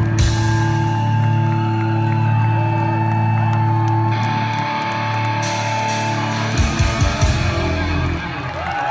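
Live hard rock from a power trio: electric guitar, bass guitar and drum kit. A chord is held for several seconds, then a burst of drum hits comes about two-thirds of the way through.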